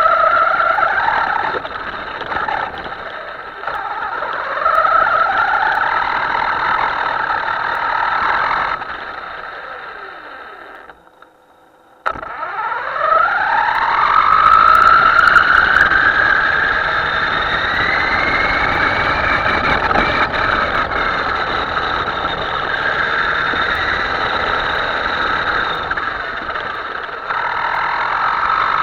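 Himoto radio-controlled boat's motor whining and changing pitch with the throttle. It winds down and stops about eleven seconds in, then spins back up with a steeply rising whine and runs on at a fairly steady high pitch.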